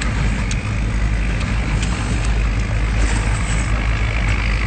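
Steady low engine rumble, with a few faint clicks over it.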